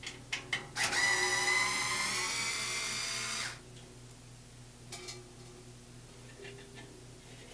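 Small cordless screwdriver running for nearly three seconds on a screw in a band saw's frame, a motor whine that rises slightly in pitch and then stops. A few light clicks come before and after it.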